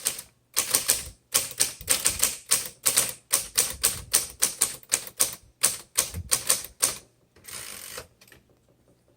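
Typing on a 1936 Royal Model O manual typewriter: a quick run of type bars striking the platen at about four a second, stopping about seven seconds in. A short rasping sound follows about a second later.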